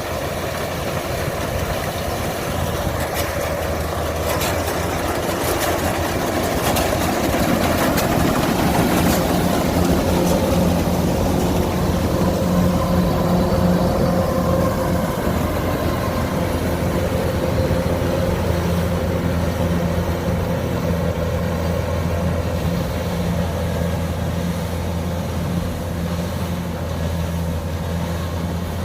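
Kubota DC105X combine harvester's diesel engine running steadily as the machine harvests rice, with a few knocks in the first ten seconds; it grows louder toward the middle, then eases off a little.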